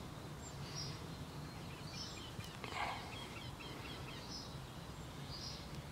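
A small bird calling: four short, high chirps roughly a second apart, faint over a steady low background hum, with a brief soft rustle about halfway through.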